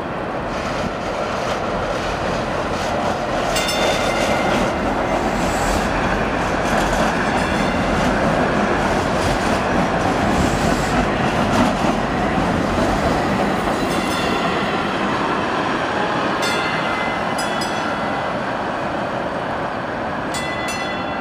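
DART light-rail train passing close by on street track: a steady rumble of wheels and running gear that builds over the first few seconds, is loudest as the cars go by, then slowly fades. A few brief high-pitched squeals sound, most of them in the last few seconds.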